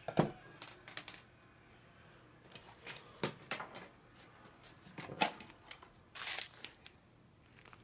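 Handling noise: scattered sharp clicks and short rustles of objects being moved about, with a longer rustle about six seconds in.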